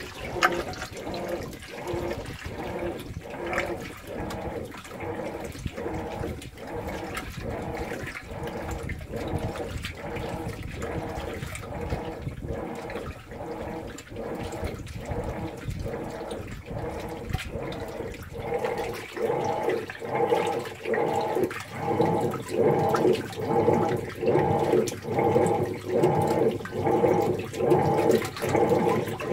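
Whirlpool Cabrio top-load washer agitating a deep-water load: water and clothes slosh back and forth in the tub in a steady rhythm of about one and a half swishes a second. It grows louder about two-thirds of the way through.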